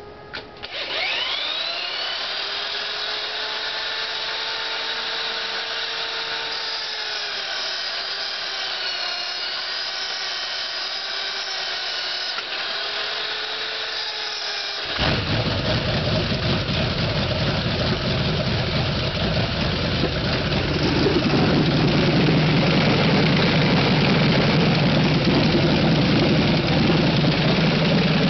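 A handheld electric drill spins up and runs with a steady whine, driving the front of a Jacobs L4MB radial aircraft engine. About fifteen seconds in this gives way abruptly to a radial engine running, which grows louder about twenty seconds in.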